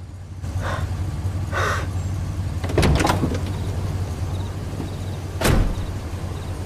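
A car engine idling with a steady low hum. A car door's latch clicks sharply a few times about three seconds in, and a car door shuts with a single thud about five and a half seconds in.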